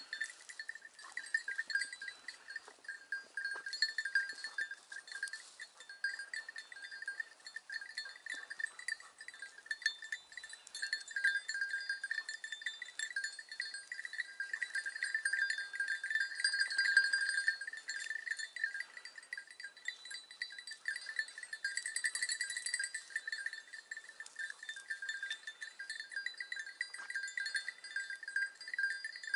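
Bell on a hunting hound's collar jingling continuously and irregularly as the dog moves through the brush: a steady metallic ringing broken by rapid clinks.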